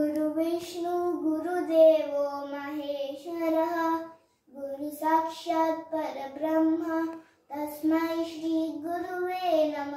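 A young girl singing solo, in three phrases with short pauses about four and seven seconds in.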